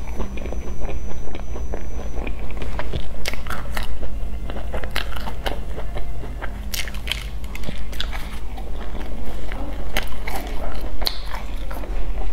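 Close-up eating of a crumb-topped cream puff: irregular crisp crackles and crunches as the crumbly crust is torn and bitten, with chewing. A steady low hum runs underneath.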